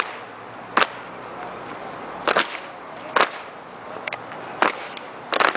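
Crisp slaps and cracks from an armed drill team working drill rifles in unison while marching, about six sharp hits spaced unevenly, some doubled, with a quick cluster near the end.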